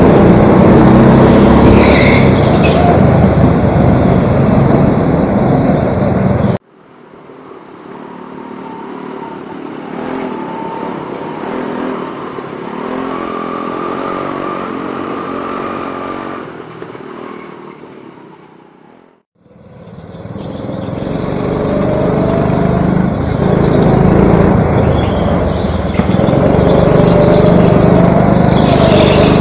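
Onboard sound of a go-kart's engine running hard. About six seconds in it drops suddenly to a much quieter, thinner engine whine for some twelve seconds, nearly cuts out, then builds back up to full loudness.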